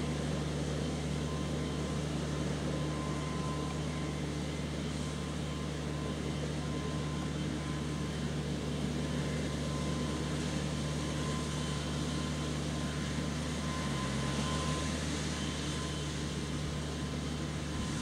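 JCB Fastrac 3190 tractor's diesel engine running steadily under load as it pulls a Vredo slot seeder through grassland at working speed. A thin steady whine sits above the engine note, and the engine note shifts briefly about fourteen seconds in.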